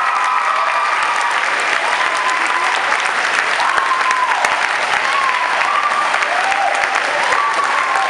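Audience applauding steadily, with voices calling out over the clapping.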